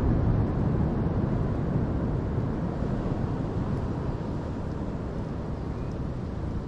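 Wind buffeting the microphone on an open shoreline: a steady low rush with no tones in it, slowly easing off.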